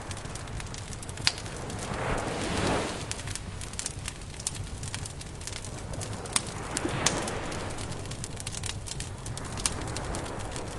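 Campfire crackling with frequent sharp pops, while surf swells and washes in twice.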